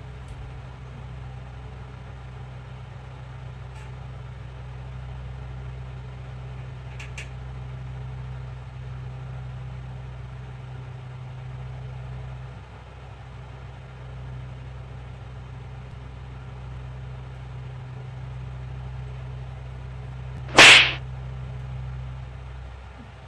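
A single sharp, loud slap of a hand, about twenty seconds in, over a steady low hum.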